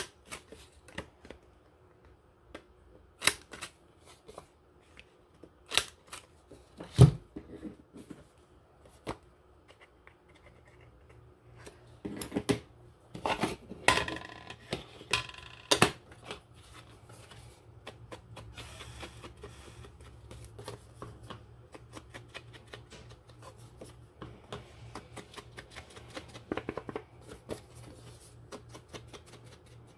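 Paper and craft tools being handled on a desk: scattered taps and clicks, a sharper knock about seven seconds in, a busier stretch of paper handling a few seconds later, then many small rapid clicks.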